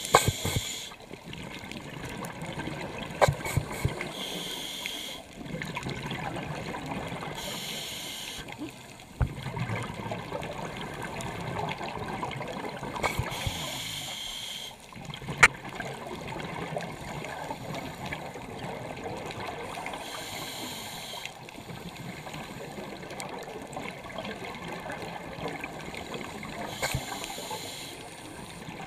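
A scuba diver breathing through a regulator underwater: hissing, bubbling bursts of exhaled air every four to seven seconds, over a steady rushing water noise, with a few sharp clicks.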